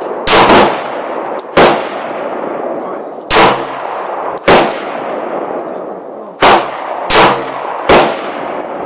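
Glock 19 9 mm pistol fired about seven times in slow, uneven succession, roughly a second apart, each shot trailing off in an echo.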